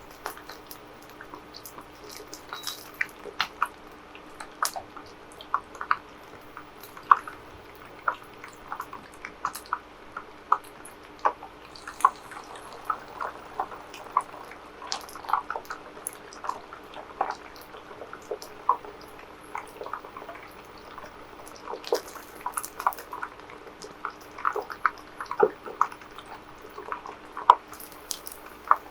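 Chicken nuggets frying in hot oil: sparse, irregular crackles and pops, a few each second, over a faint steady hum.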